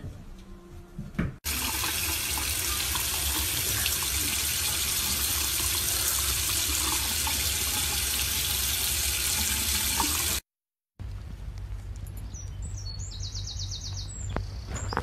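Tap water running in a steady stream and splashing onto a French bulldog puppy held under the faucet. It starts abruptly about a second and a half in and cuts off suddenly about ten seconds in.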